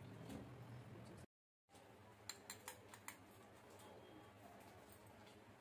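Near silence: faint room tone that cuts out completely for a moment, followed by a few faint small clicks.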